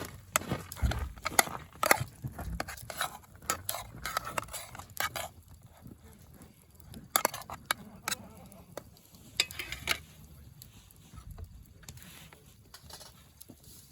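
Irregular clicks, knocks and light clatter of cooking utensils and gear being handled while food is prepared, with a few duller thumps in the first few seconds.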